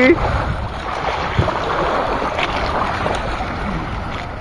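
Steady rushing of wind on the microphone and sea water washing around a small outrigger boat, with no engine tone.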